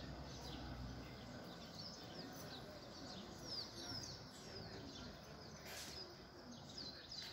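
Faint outdoor ambience with small birds chirping: repeated short, high chirps that sweep downward in pitch, coming in clusters through the middle and again near the end.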